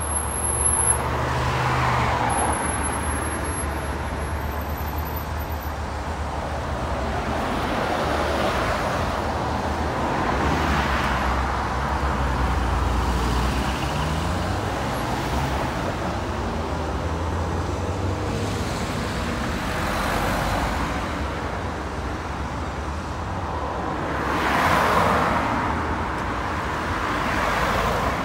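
Road traffic passing close by: cars, vans, a lorry and buses, each swelling and fading as it goes past, over a steady low engine rumble. The loudest pass comes about 25 seconds in.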